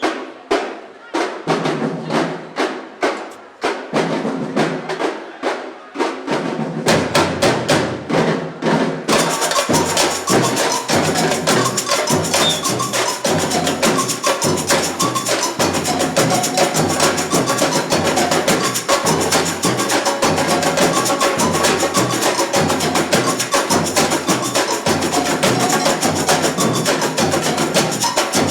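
Samba bateria drumming: sharp, sparse high strikes open the passage, deep surdo beats join about six seconds in, and the full drum corps, with snares and shakers, comes in at about nine seconds and plays on in a dense, steady groove.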